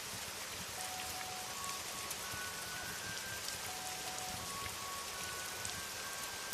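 Steady rain falling, with scattered sharp drop ticks, and a faint melody of sparse held notes underneath.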